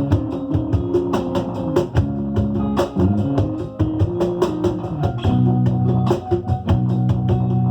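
Samba batucada music: percussion beating a quick, steady rhythm over held pitched notes.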